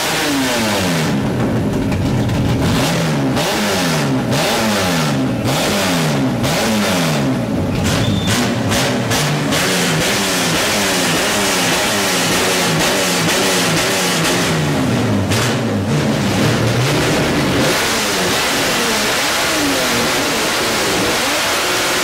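Chevrolet Opala six-cylinder and Caravan SS carburetted engines revved hard while parked, in repeated quick blips, each climbing and dropping in pitch about once a second.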